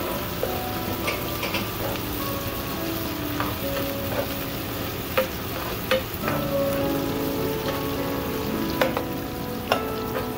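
Chopped garlic and onion sizzling in hot oil in a nonstick frying pan as they are sautéed, stirred with a spoon that clicks against the pan about half a dozen times.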